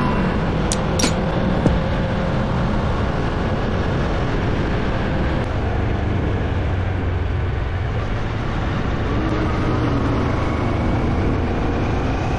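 Kawasaki Versys 650 parallel-twin engine running at a steady cruising speed, heard from the bike with wind and tyre noise, holding an even level throughout.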